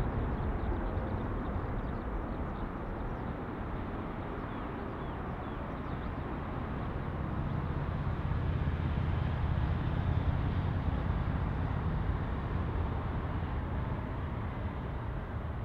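Jet airliner landing close by: a steady low rumble that swells to its loudest about ten seconds in, then fades.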